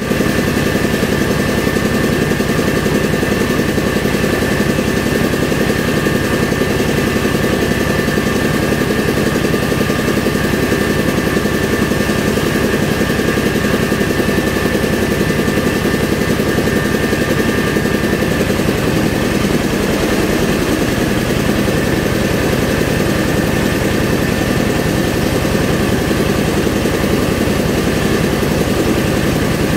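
Engine-driven mobile rice mill (selep padi) running steadily. A thin high whine over the engine's even chugging fades about two-thirds of the way through.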